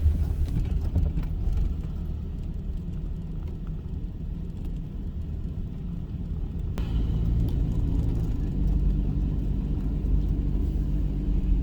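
Car driving along, heard from inside the cabin: a steady low rumble of engine and road noise, growing a little louder about seven seconds in.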